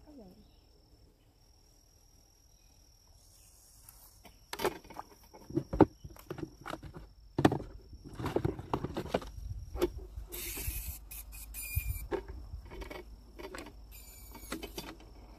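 A steady high insect drone. From about four seconds in come irregular knocks and rustles, and two short hissing bursts near the middle and near the end.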